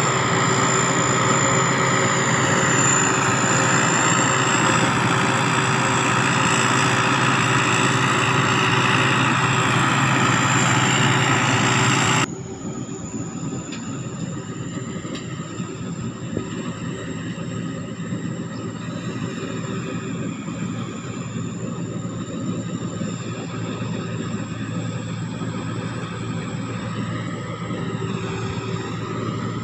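Sakpattana SS-300 combine harvester running steadily at work, its engine note topped by a thin, high, steady turbocharger whistle. About twelve seconds in the sound drops abruptly to a quieter level and runs on.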